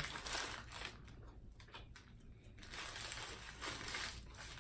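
Faint eating and food-handling noises: soft clicks and rustles over a low steady hum.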